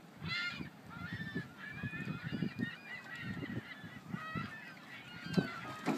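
Repeated short, high-pitched animal calls, several a second, some bending in pitch, over irregular low knocking.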